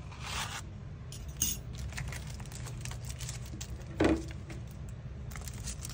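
Thin metal cutting dies clinking lightly as they are handled and lifted off card stock, with a rustle near the start and a single thud about four seconds in. A steady low hum runs underneath.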